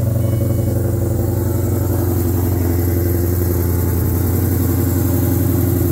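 Whipple-supercharged Gen 3 Ford Coyote 5.0 V8 idling steadily, with Spintech 6000 mufflers on the exhaust.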